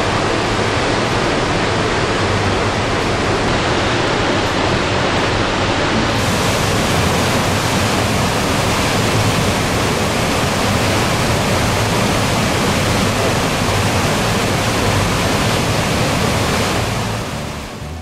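Large, high-volume waterfall: a loud, steady rush of falling water, fading out near the end.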